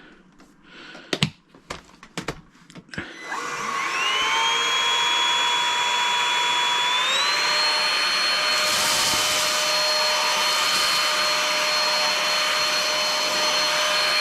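A few sharp clicks, then the Tower VL70 cordless stick vacuum's motor starts about three seconds in with a rising whine. It steps up to a higher pitch about seven seconds in and runs steadily.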